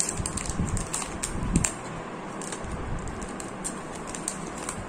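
Thin plastic protective film crinkling and crackling as it is peeled off a new smartphone, a run of short irregular crackles over a steady background hiss.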